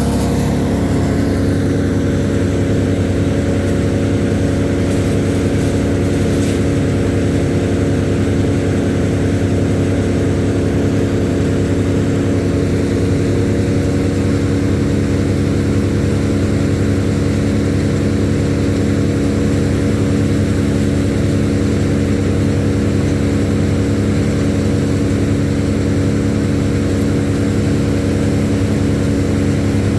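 An engine running steadily at an even speed, with no revving or pauses.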